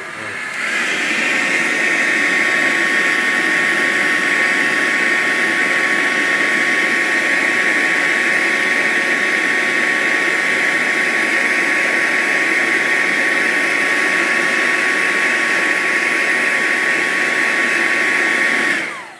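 Hand-held hair dryer running steadily, a rush of air with a high whine, blowing hot air on a sneaker's fogged-up air unit to clear the fog. It comes up to speed in the first second and switches off near the end.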